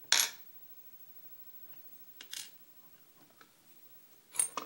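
Brief clicks and taps of small brass padlock parts being handled while the lock is taken apart: a sharp click at the start, a fainter one a little past two seconds in, and a quick pair near the end.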